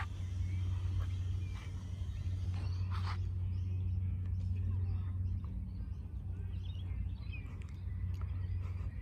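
Faint bird chirps over a steady low hum, with one short sharp sound about three seconds in.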